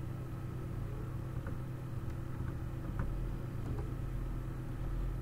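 Steady low electrical hum, with a few faint computer keyboard keystrokes as a password is typed and entered.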